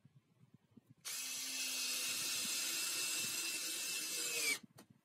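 Cordless drill driving a screw into a timber beam in one run of about three and a half seconds. Its pitch dips just before it stops suddenly, followed by a single click.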